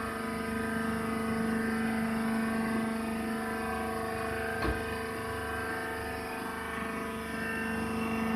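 Hydraulic wood shavings baler running: a steady motor and hydraulic pump hum made of many even tones, with a single brief knock about halfway through.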